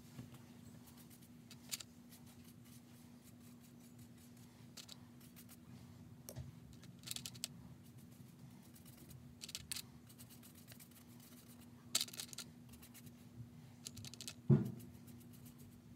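Faint, scattered scratches and light taps of fingers handling the paper pages of a journal, with a dull knock about a second and a half before the end, over a steady low hum.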